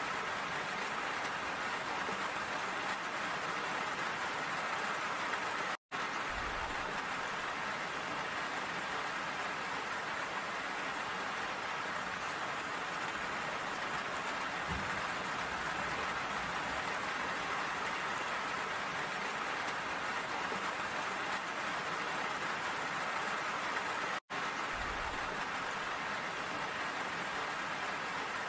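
Steady rain falling, an even hiss of many drops striking surfaces. The sound cuts out to silence for an instant about six seconds in and again about eighteen seconds later.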